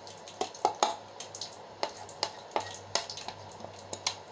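A metal spoon tapping and scraping against a plastic tray in about a dozen irregular sharp clicks while ground spices and salt are pushed off it into a pan of hot oil.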